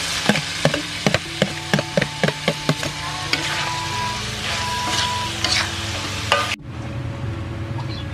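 Metal spatula knocking and scraping against a steel wok as chopped chicken offal is stirred into sizzling sauce: quick taps several times a second at first, then slower, over a steady frying hiss. About six and a half seconds in, the sound cuts off abruptly to a quieter background.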